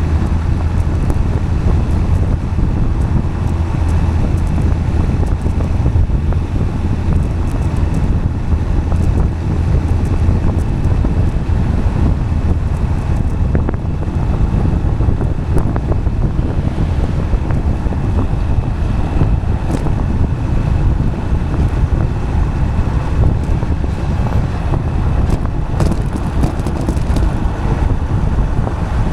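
Steady low rumble of tyres rolling on asphalt, with wind buffeting the microphone.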